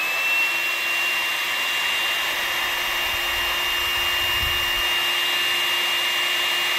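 Hot-air gun running steadily after switching on, a high motor whine over a rush of blown air, as heat-shrink tubing is shrunk over a soldered wire joint.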